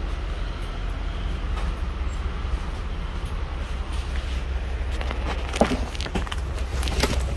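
Steady low rumble of a moving vehicle, with a handful of sharp clicks and knocks in the last couple of seconds.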